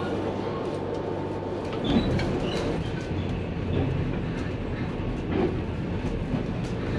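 The Overland passenger train heard from inside its carriage: a steady hum while stopped at the station, then from about two seconds in the rumble of the carriage running along the track with scattered knocks and clacks from the wheels.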